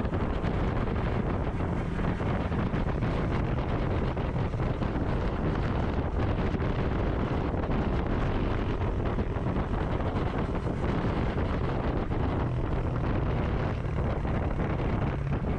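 Motorcycle running steadily on the move, its engine hum under heavy wind noise buffeting the microphone.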